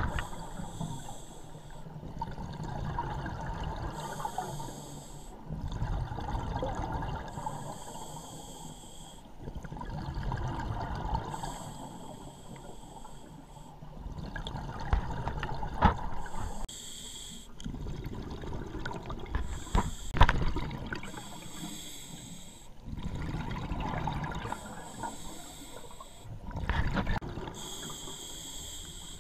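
Scuba diver breathing through a regulator underwater: a short hissing inhale about every three to four seconds, each followed by a longer low rumble of exhaled bubbles. Two sharp clicks come in the middle.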